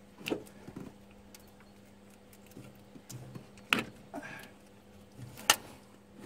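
Hand-work noises as an oil drain hose is pushed onto the vacuum pump at the back of a diesel alternator: three sharp clicks, about a third of a second, a little under four seconds and five and a half seconds in, with fainter scuffs between, over a faint steady hum.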